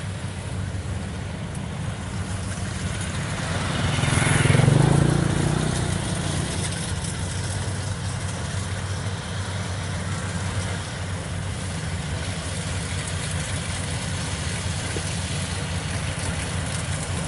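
Kubota combine harvester running steadily as it cuts rice, a continuous engine and machinery drone. The drone swells louder about four seconds in, then settles back.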